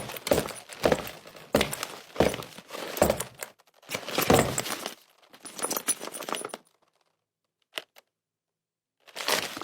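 A bag of loose metal parts shaken and jostled in quick repeated bursts, rattling and clinking to imitate a soldier's rifle and gear on the move. The rattling stops about two-thirds through, leaving one faint click and a short last rattle at the end.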